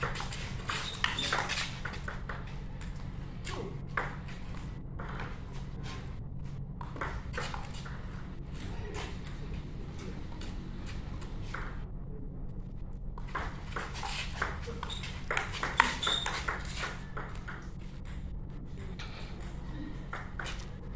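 Table tennis ball clicking back and forth off paddles and table in quick rallies, with a short break a little past the middle. A steady low hum runs underneath.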